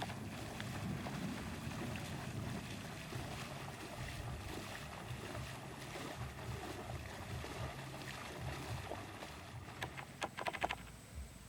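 Wind buffeting the microphone outdoors, a steady low rumble. About ten seconds in, a quick run of sharp clicks or rattles.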